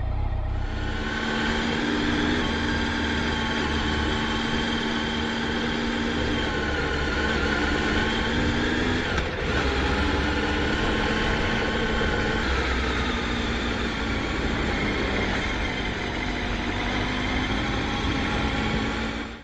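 Motorcycle engine running steadily on the road, its pitch shifting slightly now and then, over a dense low rumble, with a brief dip about nine seconds in.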